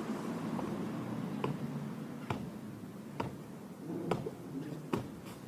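A series of five sharp clicks or knocks, evenly spaced a little under a second apart, over faint outdoor background.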